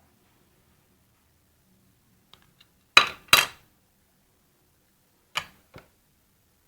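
Sharp handling clicks and knocks, as of a small hard object being handled. Two faint ticks come a little over two seconds in, then two loud clicks with short ringing tails in quick succession, then two lighter ones about two seconds later.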